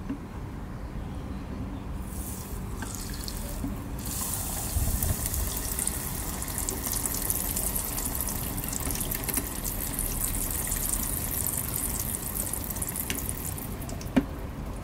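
Flour-coated firm tofu sizzling and crackling in a home electric deep fryer's hot oil. The sizzle starts about two seconds in and grows stronger a couple of seconds later. A sharp click near the end as the fryer lid is shut.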